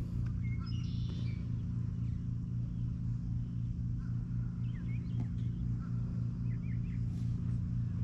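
A steady low mechanical hum throughout, with small birds chirping briefly now and then.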